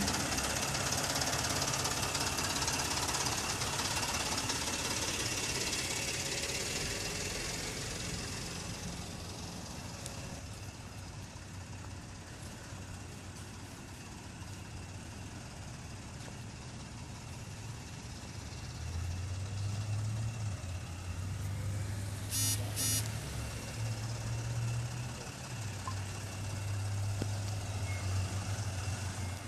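Mercedes-Benz Sprinter delivery van's diesel engine running as the van drives off, its sound dropping away for a while and then growing louder again as it comes back near. About two-thirds of the way in, two short electronic beeps.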